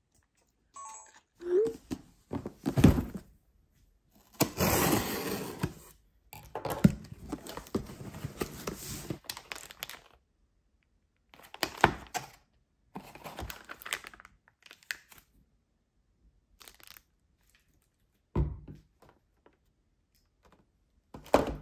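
Shopping packaging being handled: plastic wrap and a paper bag crinkling and rustling, with thunks as packs and a boxed kitchen scale are set down on a table, in short separate bursts.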